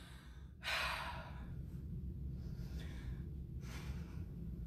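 A woman breathing heavily and sighing with emotion: four deep breaths about a second apart, the first the loudest, over a faint steady low hum.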